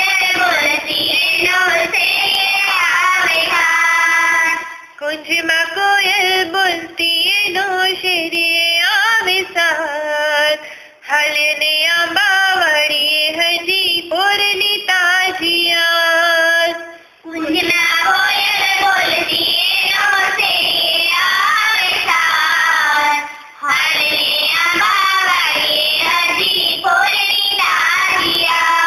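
A solo high voice singing a Gujarati poem to a melody, in phrases about six seconds long with short breaks for breath between them.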